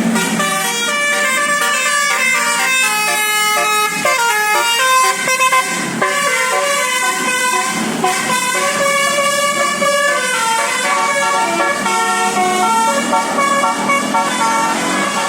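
Indonesian bus 'telolet basuri' multi-tone air horn playing a tune, with notes stepping quickly up and down without a break.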